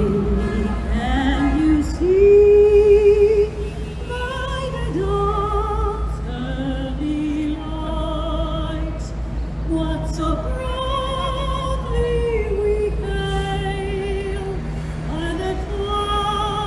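A woman sings a national anthem solo in a trained, operatic style, holding long notes with wide vibrato, over a steady low hum.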